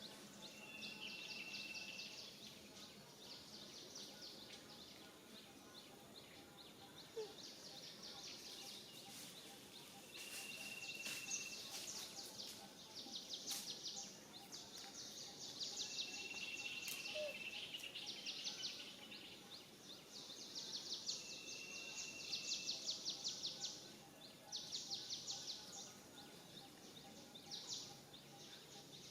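Outdoor animal calls: repeated bursts of rapid, high-pitched trilling, each a second or two long, with a short steady whistle about every five or six seconds.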